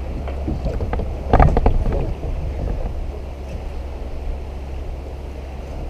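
Low, steady rumble of wind buffeting a kayak-mounted action camera's microphone. About a second and a half in comes a short cluster of knocks and rattles on the kayak, with a few lighter clicks before it.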